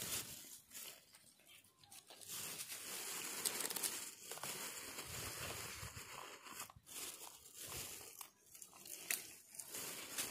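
Irregular crinkling and rustling close to the microphone, broken by a few sharp clicks.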